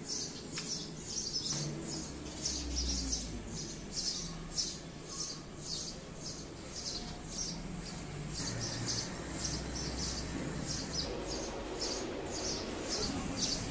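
A small bird chirping over and over, short high chirps about twice a second, with faint low handling noise beneath.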